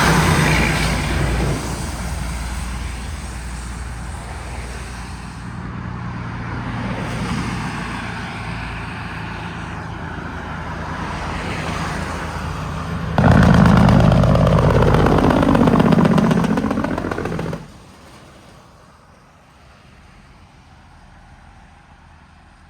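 Road traffic: heavy vehicles passing with engine and tyre noise that fades out over several seconds. About thirteen seconds in, a louder vehicle passes for about four seconds, then the sound cuts off abruptly to a faint background of distant traffic.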